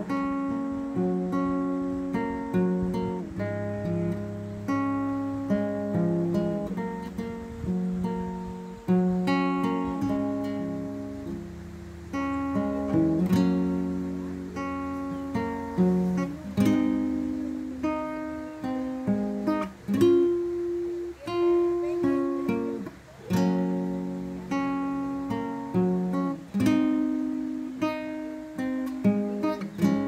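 Background music on acoustic guitar: a continuous run of plucked notes, each dying away after it is struck.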